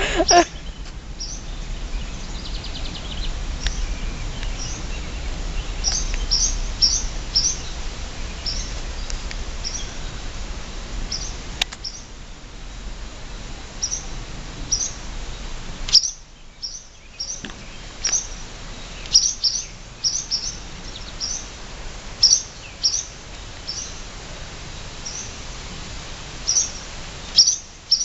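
Barn swallows giving short, sharp high chirps over and over, often two or three in quick succession: alarm calls from birds defending their nest.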